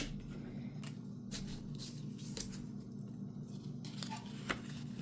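Paper and card being handled: a few brief rustles and crinkles over a steady low hum.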